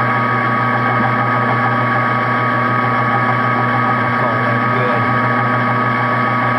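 Metal lathe running at a steady speed, a low hum with a high steady whine from its motor and gearing, while the cutting tool takes a light chamfer cut on the inside edge of a rifle barrel's muzzle.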